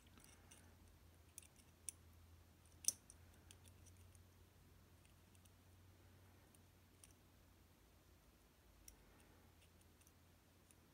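Faint, scattered small metal clicks as key pins are worked out of the plug of a disassembled Basi K10 dimple lock, the clearest about three seconds in.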